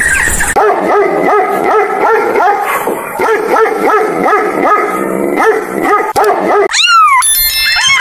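A dog giving quick, whiny yips over and over, about three a second. Near the end, the yips stop and a cat meows.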